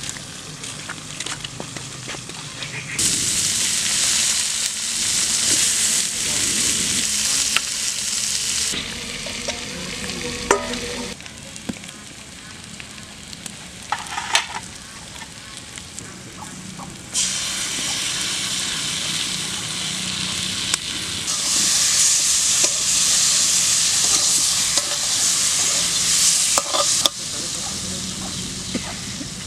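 Potato chunks sizzling in hot oil in an aluminium wok while a metal spatula stirs them, with scrapes and clicks of the spatula against the pan. The sizzling comes in two loud stretches, about three seconds in and again from about seventeen seconds, and dies down in between.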